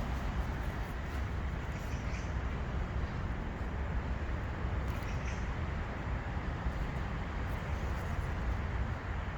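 Steady outdoor background noise with a strong low rumble, with faint high chirps about two and five seconds in.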